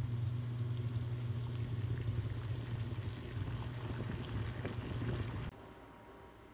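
Water at a rolling boil in a stainless steel pot on an electric cooktop: a steady low rumbling hum with bubbling crackle. It cuts off suddenly about five and a half seconds in.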